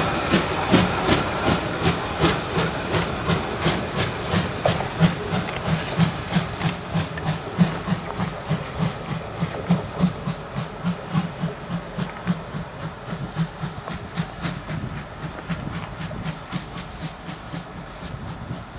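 Hr1 steam locomotive chuffing as it moves slowly away: an even run of exhaust beats, roughly two to three a second, over steam hiss, growing steadily fainter.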